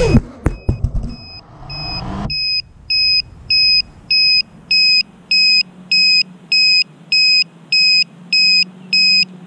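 A 5-inch FPV racing quad comes down: its motor whine cuts off with a few sharp knocks in the first second, as it hits and settles on the pavement. About two seconds in its lost-model buzzer starts, a high piezo beep repeating steadily about one and a half times a second.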